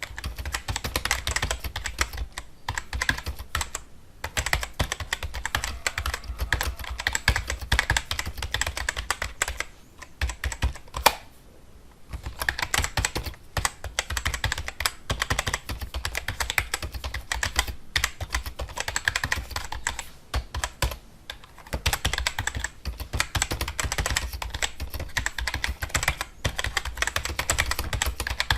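Fast typing on a computer keyboard: a dense run of key clicks, broken by short pauses, the longest about ten seconds in.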